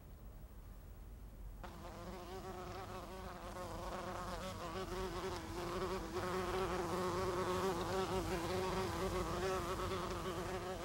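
A bee buzzing, its pitch wavering as it moves. The buzz comes in about two seconds in and grows louder; it is a coarse buzz, which the boy takes for a bee that does not settle on good flowers.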